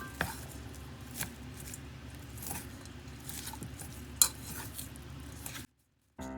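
Kitchen utensils and dishes clinking over a low steady room noise: a handful of sharp clinks, the loudest about four seconds in. The sound cuts off suddenly near the end.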